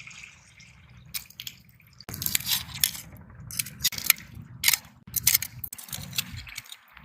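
Small shells clicking and crackling against each other, a quick irregular run of sharp clicks over low handling rumble, starting about two seconds in.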